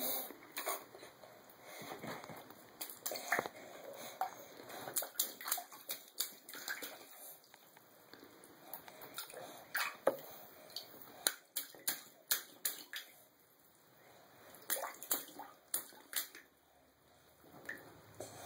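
Shallow bathwater splashing and sloshing in irregular small bursts, stirred by a baby's hands in an inflatable tub, with quieter stretches between.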